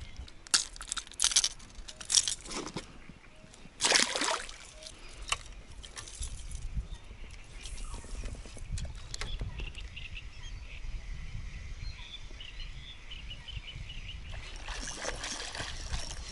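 Clicks and knocks of fish and fishing tackle being handled in a small inflatable boat, with a short splash about four seconds in as the little pike goes back into the water. Then quiet open-water ambience with faint birdsong, and a louder stretch of rustling and splashing near the end.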